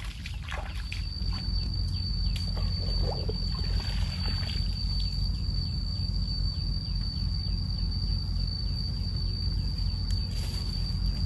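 Outdoor ambience: a steady low rumble under a continuous high-pitched whine that starts just under a second in, with faint quick chirps repeating a few times a second through the middle.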